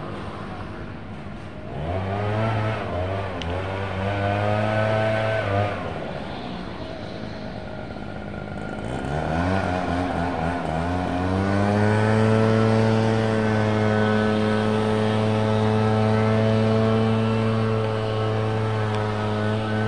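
Diesel locomotive engine revving up: the pitch climbs about two seconds in, falls back near six seconds, then climbs again from about nine seconds and holds a steady drone.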